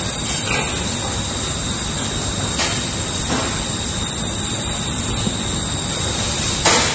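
Steady loud rushing noise in a pig barn, with a thin high whine held throughout. A few short sharp noises break in about half a second in, near three seconds and again near the end.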